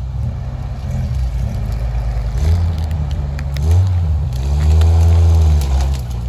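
Off-road 4x4's engine working through brush, revving briefly about two and a half and three and a half seconds in, then a longer rev that rises and falls near the end.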